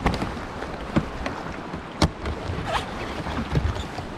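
River current rushing and splashing around a whitewater kayak, with several sharp knocks about a second apart.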